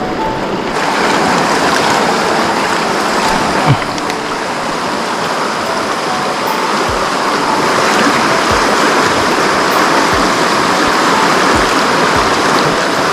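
Fast-flowing river water rushing steadily, the river running high with rainy-season water.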